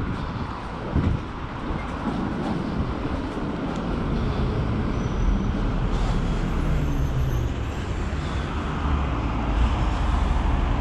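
Ottobock B500 electric wheelchair rolling along a tarmac path: a steady low rumble of tyres and drive motors, with a short knock about a second in.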